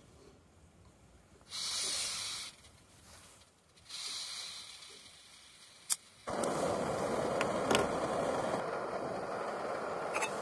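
Backpacking canister stove: gas hisses twice from the opened valve, a click about six seconds in as it lights, then the burner flame runs with a steady rushing sound. A couple of light clicks follow as the pot goes on.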